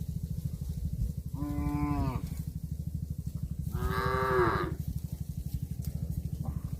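A cow mooing twice, two short calls a couple of seconds apart, the second louder. A steady low throbbing hum runs underneath.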